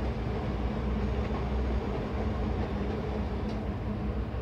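A steady low hum and rumble, unchanging throughout, with a held low tone under it.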